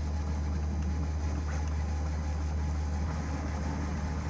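Bambu Lab A1 Mini 3D printer running a print: a steady low hum from its motors and fans.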